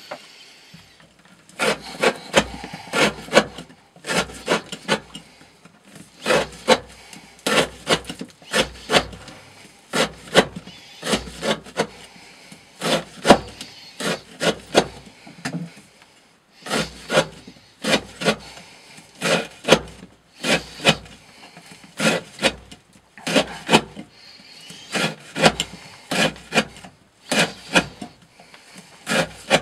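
A knife with a CPM S35VN steel blade slicing down through fibrous rope against a wooden board. The cuts come as sharp strokes in quick runs of several, with short pauses between runs: repeated rope cutting as an edge-retention test.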